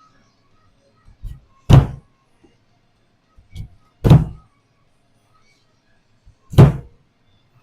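Chopping on a cutting board: three heavy thuds about two and a half seconds apart, each just after a lighter knock.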